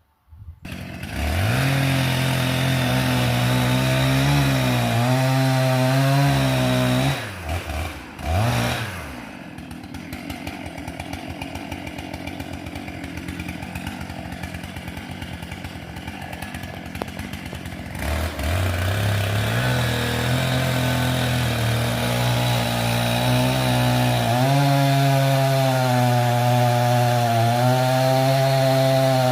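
Chainsaw running at high speed and cutting into a large pine, its pitch wavering under load. Around a quarter of the way in it drops off twice, then idles more quietly for about eight seconds before revving back up to cut again.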